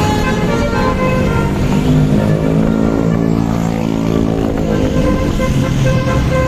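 Basuri 'telolet' multi-trumpet bus horn playing a tune, one held note after another in quick steps, over vehicle rumble.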